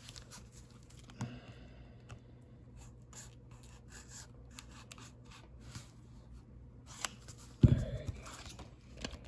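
Handling of a plastic trading-card blister pack: scattered light clicks and crinkles of the packaging, with one louder thump about three quarters of the way through.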